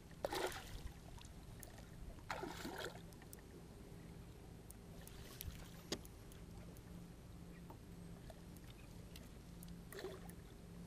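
Bass fishing boat on the water: a steady low motor-like hum with several short splashy rushes of water noise, the strongest near the start, about two and a half seconds in, and at the very end, as a hooked bass is fought beside the boat.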